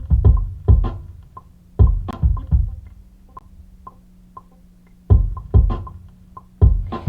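A programmed drum beat of heavy kick and snare hits in an uneven, looping pattern. The hits drop out for about two seconds in the middle, leaving only light ticks over a steady low tone, then come back.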